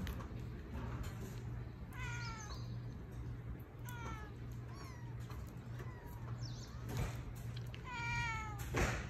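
Kittens mewing: about five short, high-pitched meows that fall in pitch, spaced a second or two apart, the loudest near the end. A steady low hum runs underneath.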